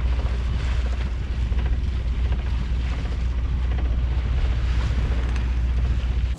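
Wind buffeting the microphone aboard a small sailboat under way, a steady low rumble over the rush of sea water along the hull.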